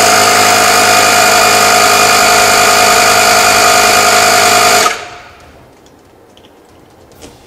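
Audew portable digital tyre compressor inflating a car tyre, its motor and pump running loud and steady, then cutting off by itself about five seconds in on reaching its preset pressure of 2.15 bar. A short click near the end.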